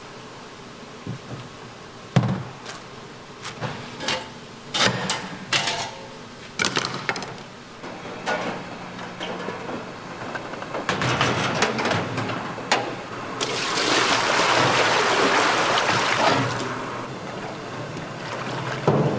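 Cooking at a snack-bar stall: scattered sharp clinks and knocks of utensils, then about thirteen seconds in a steady rush of pouring liquid lasting about three seconds.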